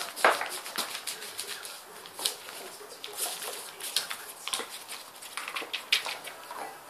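Newspaper rustling and crackling in short, irregular bursts.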